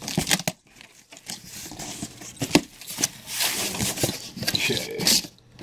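Cardboard shipping box being opened by hand: flaps pulled up and scraping against each other, with rustling, a few sharp clicks and tearing of cardboard or tape.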